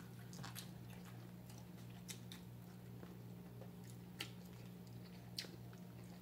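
Faint eating sounds: quiet chewing with a few short, sharp mouth clicks as rice and fried egg are eaten by hand, over a steady low hum.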